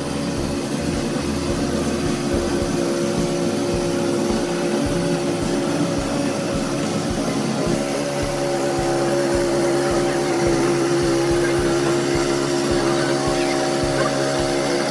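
Small petrol-engine mini tiller running steadily under load, its rotating tines churning through a dry sand and cement mix.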